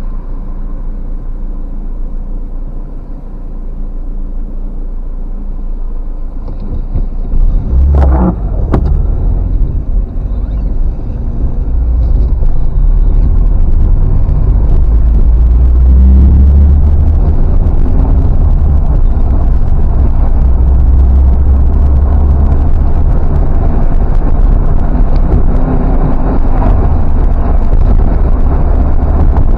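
A car driving, heard as a steady low rumble of road and engine noise that grows much louder about seven seconds in and stays loud. Two sharp knocks come close together about eight seconds in.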